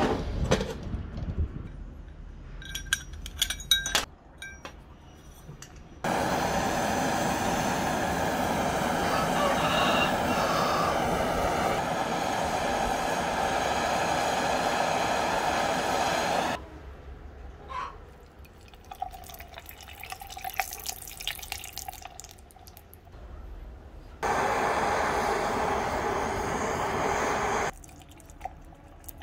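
A handheld heating torch blows with a steady, loud rushing hiss, in two long stretches, as it heats a small steel piece. Scattered clicks and light metal knocks come before and between the stretches.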